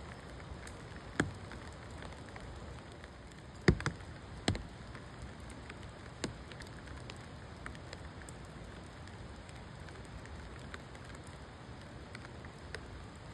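Steady patter of rain, with scattered sharp drips and a few louder drops striking something close by, the loudest about four seconds in.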